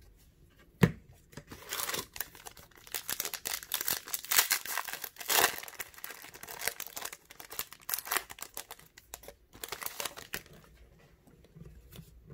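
A foil Upper Deck CHL hockey-card pack wrapper torn open and crinkled by hand, in a run of uneven tearing and crackling rustles that dies down near the end. A single sharp tap about a second in is the loudest sound.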